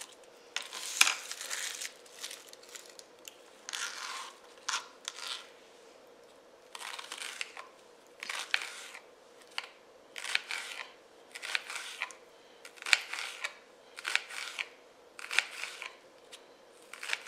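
Knife slicing through a raw onion and the slices being pulled apart into rings: crisp crunching cuts about every second, at an uneven pace, over a faint steady hum.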